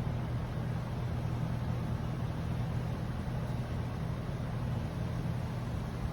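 Air-conditioning unit running with a steady low hum.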